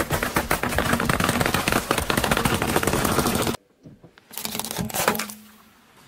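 Car tyre rolling over a long row of aluminium drink cans, crushing them one after another in a dense run of cracks and crunches that cuts off suddenly. About a second later comes a shorter burst of clicks and crackling.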